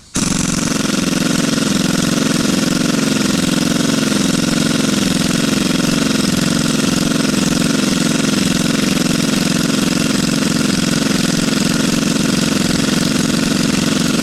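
Engine running steadily close by, with a slightly wavering pitch.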